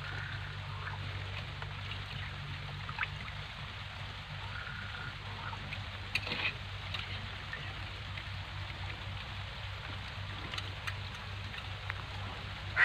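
Soaked chana dal scooped by hand from a metal bowl of water and dropped into a stone wet grinder (aattukal), with faint water trickling and dripping and a few light clicks. A steady low hum runs underneath.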